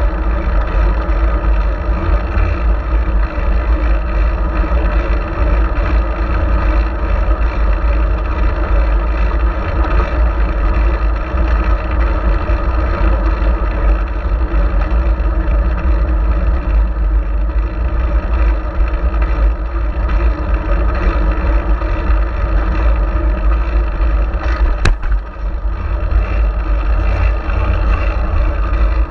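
Steady wind rush and low rumble on an action camera's microphone while riding a fixed-gear bicycle along a paved road, mixed with road and tyre noise. A single sharp click sounds near the end.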